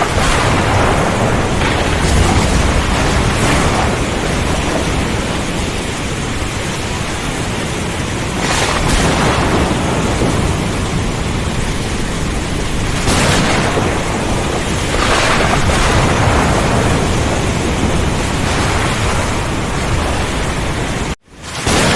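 Heavy rainstorm: dense rain with strong wind and thunder, swelling louder every few seconds. The sound drops out abruptly for a moment near the end, then resumes.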